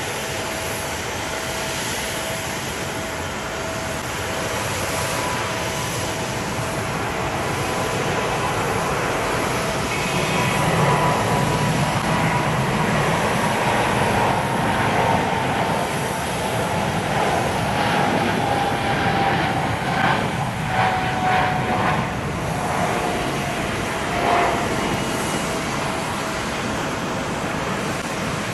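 Boeing 747-8's four GEnx-2B turbofan engines at takeoff thrust through the takeoff roll and lift-off: a steady jet roar that grows louder about ten seconds in, with a whine that slowly falls in pitch.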